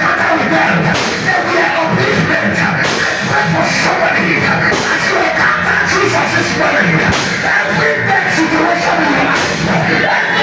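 Loud rock music playing steadily, with drums and a dense guitar-band sound.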